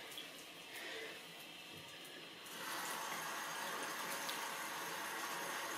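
Bathroom sink mixer tap turned on about halfway through, then water running steadily from the faucet into the basin.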